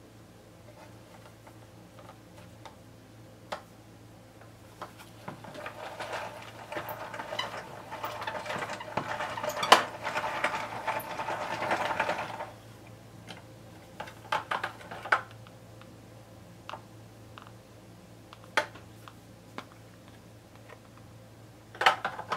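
Plastic hand-cranked toy noodle maker (Kitchen Marche Gokumen Zukuri) being cranked, its gears and rollers rattling and clicking as they press a piece of dough into a sheet for about seven seconds. Scattered single clicks and knocks come before and after it.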